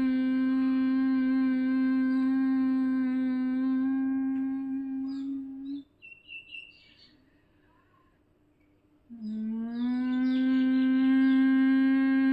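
A woman's steady, bee-like nasal hum of bhramari pranayama (humming-bee breath), held on one pitch while breathing out through the nose. It stops a little under halfway through, and after a pause of about three seconds a second hum begins, sliding up slightly before settling on the same pitch.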